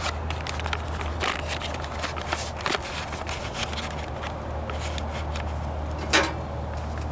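Footsteps and handling noise: small irregular clicks and scrapes over a steady low hum, with one louder knock about six seconds in.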